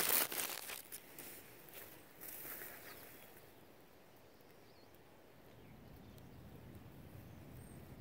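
Rustling and knocks of a phone being set down on the forest floor in the first second, a brief rustle around two seconds in, then quiet woodland ambience with faint low background noise.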